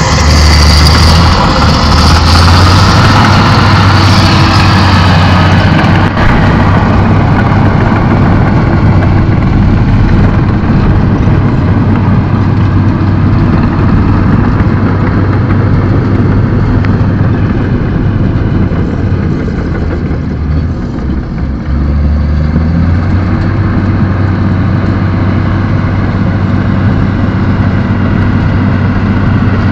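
Shantui SD16E crawler bulldozer's diesel engine working under load as the blade pushes soil, a loud, steady low drone. A higher hiss sits over it for the first few seconds, and the engine eases off briefly about two-thirds of the way through, then picks up again.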